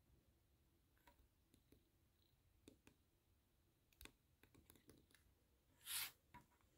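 Faint clicks and taps of fingers handling a NOOK Tablet and pressing at its bezel, with a brief louder brush as the tablet is moved about six seconds in.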